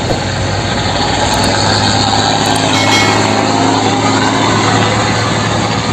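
Large tanker truck driving on a road: a steady engine drone with tyre and traffic noise.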